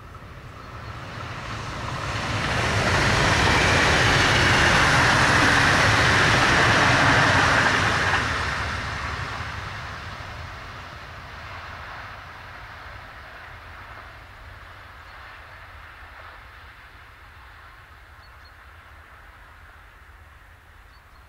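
A DB Class 425 electric multiple unit passing at speed: the wheel and rail noise builds quickly, is loudest for about five seconds as the train goes by, then fades away as it runs off into the distance.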